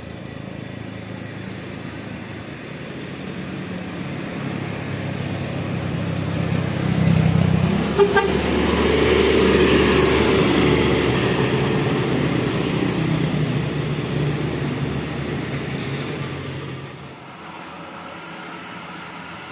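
A large bus passes close by with its diesel engine running: the sound swells, is loudest through the middle and falls away near the end. A horn sounds as it goes by.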